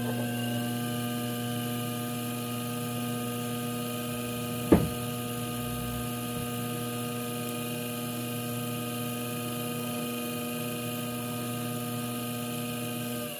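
Electric pottery wheel's motor humming steadily as the wheel spins, with one sharp knock about a third of the way in.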